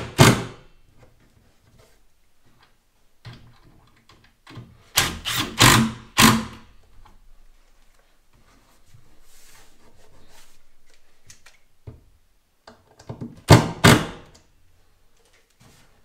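Cordless impact driver hammering in short trigger bursts as it tightens connector screws joining two cabinet boxes: one burst at the start, a cluster of several quick bursts about five seconds in, and two more near the end.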